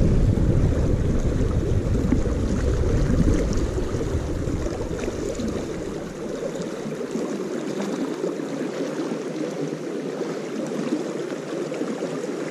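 Rushing water of a flooded, high-running creek: a steady wash. A low rumble of wind on the microphone rides over it for the first half and drops away about six seconds in.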